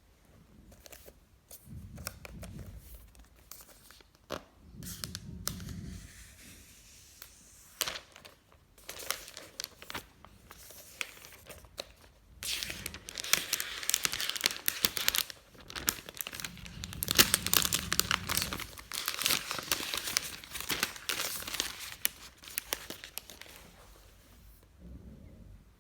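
Unboxing sounds: packaging being handled, torn and crinkled, with scattered clicks and a few dull bumps. The crinkling is densest and loudest in the second half.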